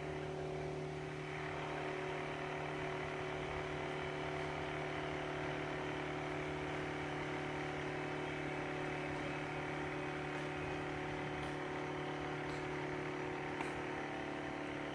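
Steady mechanical hum from an unseen motor, holding several fixed tones without change, with a few faint ticks over it.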